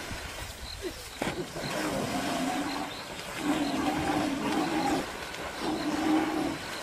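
Splashing in river water, then three long, low, moaning calls held a second or more each, from a waterbuck caught in the water by a lion.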